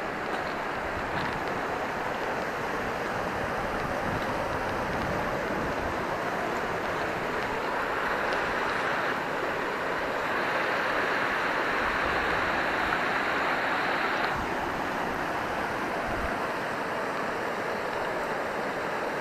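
Steady rushing of a mountain stream, swelling louder for several seconds past the middle and then dropping back abruptly.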